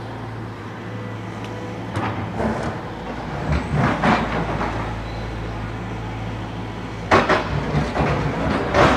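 Hitachi excavator's diesel engine running steadily, with intermittent clanks and knocks, the loudest near the end.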